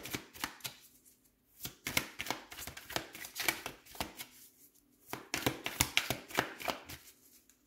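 A tarot deck being shuffled by hand: quick runs of clicking and slapping cards in three bursts, with short pauses between them.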